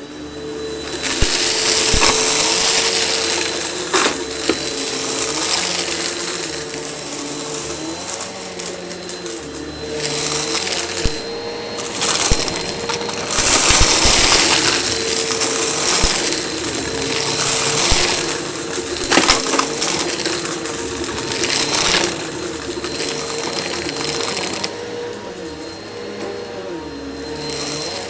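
Eureka vacuum cleaner running with a steady motor whine, crunching and crackling as grit and fluff rattle up the intake. It swells and dips as the nozzle moves.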